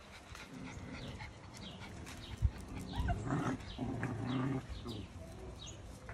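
Miniature schnauzer puppies vocalizing as they tussle and play, loudest from about three to five seconds in.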